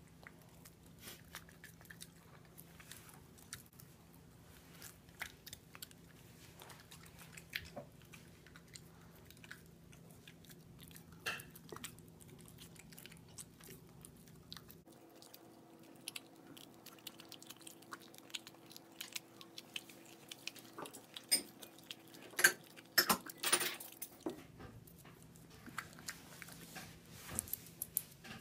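Boston terrier biting and chewing a boiled pork rib on the bone: an irregular run of gnawing clicks and crunches, loudest in a cluster about three-quarters of the way in.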